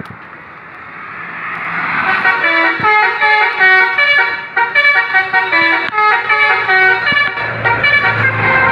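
Basuri 'telolet' multi-tone musical horn on a tour bus playing a rapid tune, its pitch stepping from note to note every fraction of a second, loud, starting about two seconds in. Before it, a rush of noise swells as the bus comes closer.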